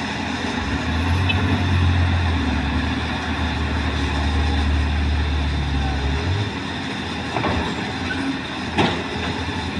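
Heavy diesel engine of a Caterpillar excavator running with a deep steady drone that drops away about six seconds in, followed by a couple of sharp knocks.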